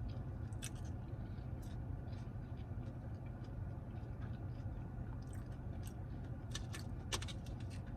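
A person chewing food close to the microphone, with scattered wet smacks and clicks, over a steady low hum.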